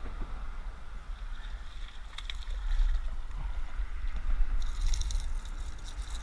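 A hooked bass splashing and thrashing at the surface in the shallows as it is brought to the bank, starting about two-thirds of the way in, over a steady low wind rumble on the microphone.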